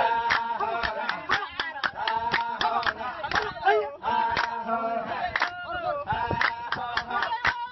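A pair of Laysan albatrosses in their courtship dance. Rapid, irregular bill clacking is mixed with whistling, wavering calls, and a gliding call comes about three and a half seconds in as they point their bills skyward.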